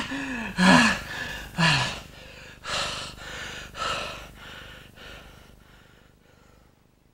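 A man's voice straining under heavy effort: three groans in the first two seconds, the later ones sliding down in pitch, then a few heavy gasping breaths that grow fainter and die away.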